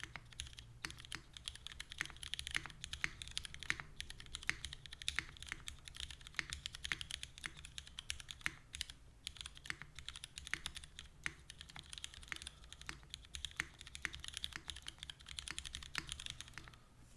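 Fast continuous typing on a prototype mechanical keyboard with Cherry MX Black linear switches and GMK doubleshot ABS keycaps: a dense, irregular run of key clacks with a brief pause about halfway through. It stops just before the end.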